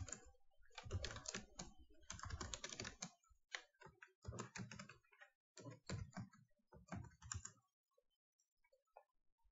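Computer keyboard typing, faint, in quick bursts of keystrokes that stop about two seconds before the end.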